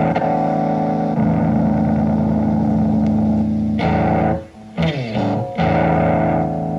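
Ibanez RG Series electric guitar played through a cable: held chords ringing and changing every second or few, with a short break about four and a half seconds in, then a quick slide down in pitch before another chord rings out.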